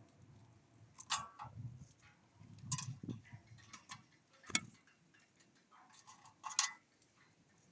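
Birds pecking and tapping at a feeder: a handful of sharp, irregular taps and clicks with some duller low knocks between them.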